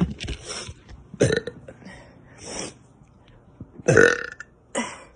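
A girl forcing out short burps: a brief one about a second in, the loudest about four seconds in, and a short one just after it.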